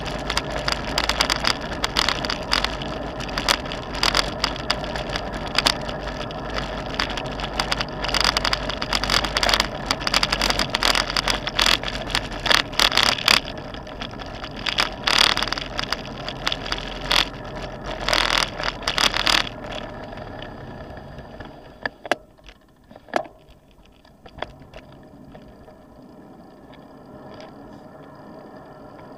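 Road bike riding over city streets, heard through a handlebar-mounted camera: wind rumble and road noise with rapid, constant rattling and clicking. About two-thirds of the way through it turns much quieter, with only a few scattered clicks.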